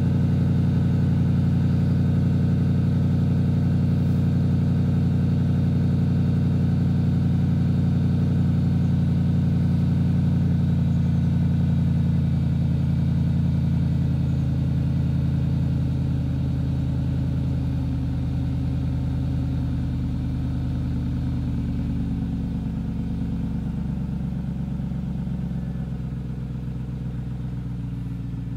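2008 Range Rover Sport Supercharged's 4.2-litre supercharged V8 idling after a cold start, heard at the stock exhaust tailpipes. Over the second half the raised cold idle settles, dropping slightly in pitch and getting gradually quieter.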